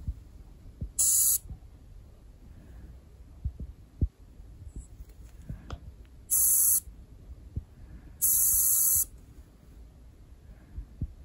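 Canned oxygen hissing out through a plastic mask in three short spurts, the last one longer, as oxygen is given to a cat. Underneath, a Siamese cat purrs low and steadily.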